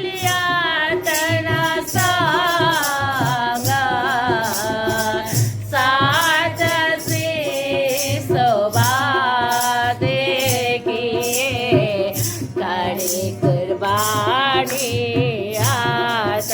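A woman singing a devotional song (bhajan) over a steady high percussion beat of about two strokes a second.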